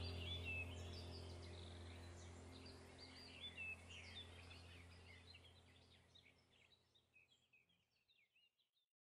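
Background soundtrack of birds chirping over a low steady hum, fading out gradually to silence near the end.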